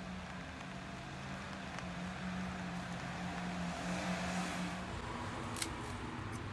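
A motor vehicle running nearby, its engine a steady low hum, with a hiss that swells and fades about four seconds in. A single sharp click near the end.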